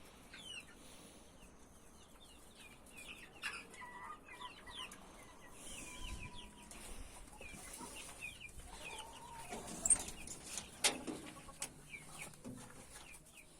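Chickens clucking, with many short high peeps and a few knocks in the last few seconds.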